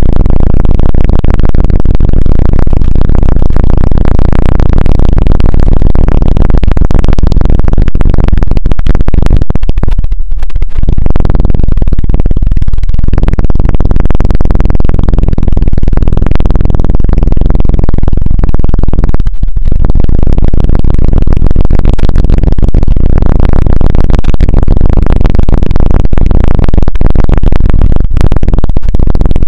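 Fingertips rubbing and tapping directly on a bare microphone, the ASMR 'helicopter' trigger: a loud, fast, rumbling flutter of close thuds that breaks off briefly a few times.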